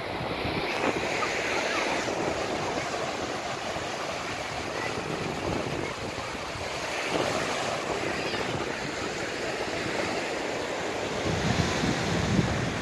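Small waves breaking and washing up on a sandy shore, a steady surf wash, with wind buffeting the microphone, stronger near the end.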